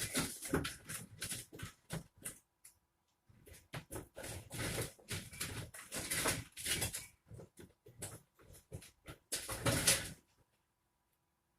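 Rummaging: objects being moved and handled, irregular rustling and clattering in bursts that stop shortly before the end.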